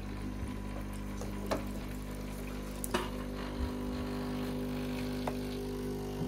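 Cecotec coffee machine running with a steady hum, its pump moving water, with a few faint clicks.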